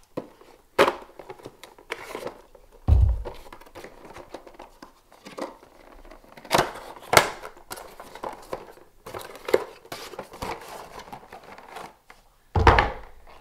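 Cardboard box and plastic packaging being handled as a boxed camera is worked out of it: crinkling, scraping and sharp clicks, with a dull thump about three seconds in and another near the end.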